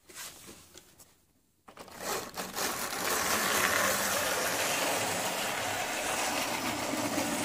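Old model train locomotive's small electric motor and gearing running on the track, starting about two seconds in and then holding a steady, coarse mechanical noise. The locomotive runs, though it does not run well.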